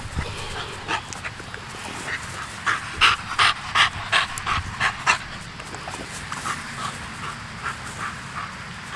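American Bully puppy panting hard close to the microphone. There is a quick run of loud pants, about three a second, midway through, then fainter panting.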